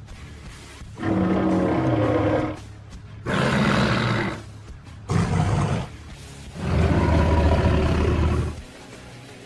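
Four designed monster roars in turn, each about one to two seconds long, the last the longest, over quieter instrumental music.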